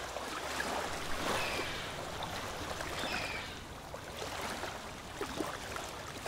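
Sea waves washing, a steady rushing hiss of water, with a couple of brief high chirps about one and three seconds in.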